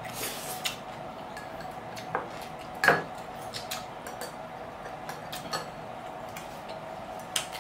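Eating at a table: scattered small clicks and taps of plastic chopsticks against dishes, mixed with chewing, over a faint steady hum. One louder knock comes about three seconds in.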